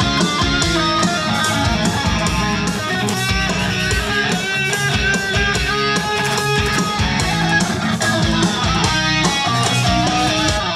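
Electric guitar playing a busy run of many fast notes over a full band backing track with drums, stopping abruptly at the end. It is a recording take that the producer finds has timing and pitch issues.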